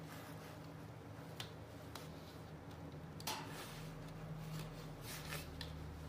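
Faint ticks and rustles of thread being pulled taut and wound around the small nails of a string-art board, with a sharper tick about three seconds in, over a faint low hum.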